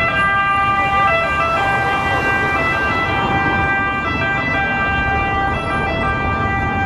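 Fire engine siren sounding in steady tones that step back and forth between pitches, over street traffic noise.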